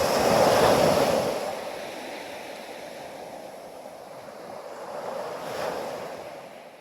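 Ocean waves breaking and washing in. A loud surge at the start eases off, and a second, smaller swell comes about five and a half seconds in before the sound fades out.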